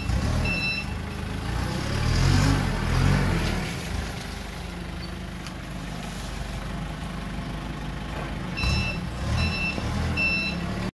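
Mitsubishi Clasidia 30 forklift running as it manoeuvres, its engine swelling louder a couple of seconds in. Its reversing alarm sounds in short evenly spaced beeps at the start and again near the end.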